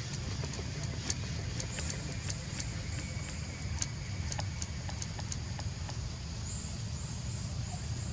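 Outdoor background sound: a steady low rumble with scattered sharp clicks and short runs of faint high chirps.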